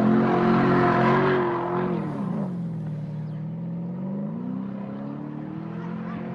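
Porsche Cayenne engine revving high while its wheels spin in loose sand. The revs fall away about two seconds in, then climb again and hold steady.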